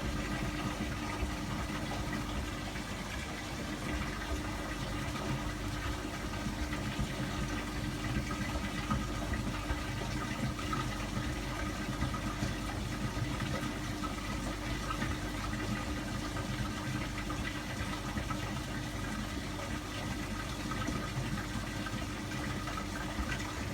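Hotpoint washing machine running mid-wash: a steady watery rush of water in the drum over a faint, constant machine hum.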